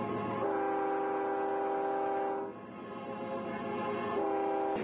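A train horn sounds a steady multi-note chord. One long blast lasts about two seconds, and after a short break a second, shorter blast comes near the end.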